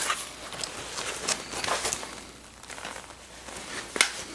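Paper pages of a textbook rustling as they are handled and turned, in short, crisp strokes, with a sharper one about four seconds in.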